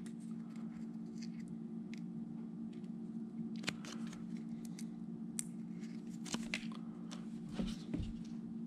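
Faint handling sounds: small clicks and rustles as an adhesive vinyl patch is peeled from its backing and pressed onto a plastic RC transmission case, over a steady low hum.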